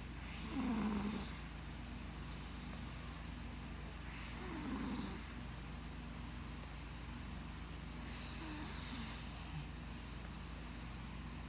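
Snoring in a slow, even rhythm: three snores about four seconds apart, each about a second long, a low drone falling in pitch with a breathy hiss on top, the first the loudest and the last the faintest.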